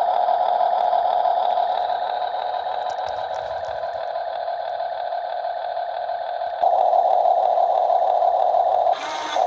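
Huina 1/14-scale RC excavator's small electric motors and plastic gearboxes whining steadily, becoming louder about two-thirds of the way through.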